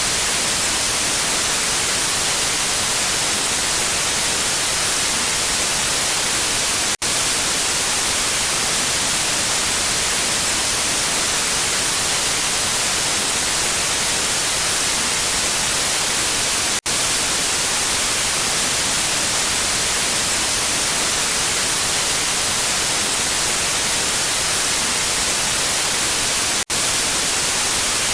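Steady hiss of radio/TV static, the even noise of a lost signal, brightest in the treble. It drops out for an instant three times, about every ten seconds.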